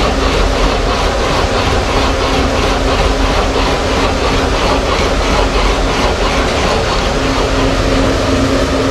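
Laboratory fatigue-test rigs for bike suspension and wheels running: a loud, steady machine noise with a constant hum and a fast, regular pulsing clatter of the cycling test machines.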